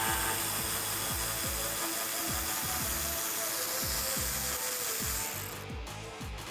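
Cordless ratchet with a 10 mm socket spinning out a headlight mounting bolt: one steady whirring run that stops about five and a half seconds in.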